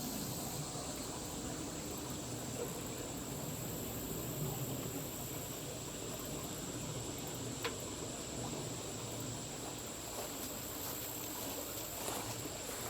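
Insects droning steadily in a high, even pitch over faint background noise, with one faint click about eight seconds in.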